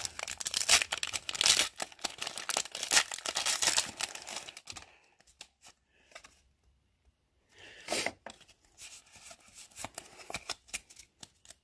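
A Pokémon TCG booster pack's foil wrapper being torn open and crinkled, dense crackling for the first four or five seconds. After that there are quieter rustles and a short crinkle about eight seconds in as the cards are drawn out.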